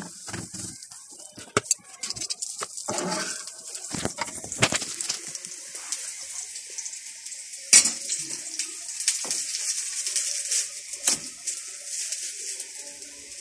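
Kitchen handling noises: sharp clicks and clatters of utensils, the loudest about eight seconds in, over a steady high hiss.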